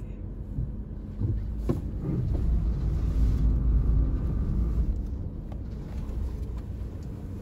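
Cabin sound of a 2024 Suzuki Jimny 5-door, with its 1.5-litre four-cylinder, creeping down a steep ramp under hill descent control with no braking. It makes a low rumble that swells in the middle, with one sharp click just under two seconds in.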